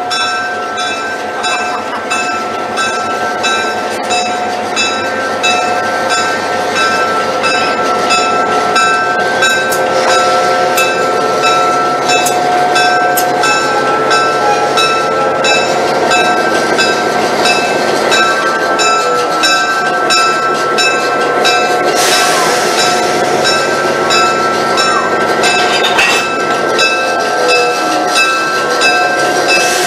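EMD SW8 switcher locomotive rolling past slowly with its train of coaches, its bell ringing steadily at about two strikes a second. A few seconds of hiss come about two-thirds of the way through.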